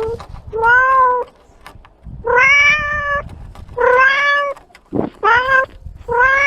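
Cat meowing over and over: about five long meows in a row, each under a second.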